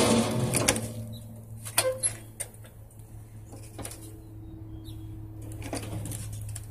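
A brick being worked against a steel walk-behind mower deck: a sharp knock with a short ring right at the start, then scattered clicks and scrapes, under a steady low hum.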